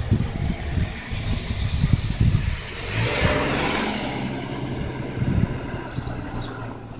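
A car drives past on the street, its engine and tyre noise swelling to a peak about three and a half seconds in, then a low engine hum lingers as it goes. In the first few seconds there are irregular low rumbles.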